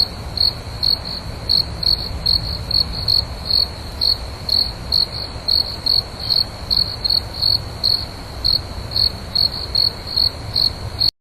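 Crickets chirping: short, high chirps at about two a second, unevenly spaced, over a low steady rumble. It all cuts off abruptly near the end.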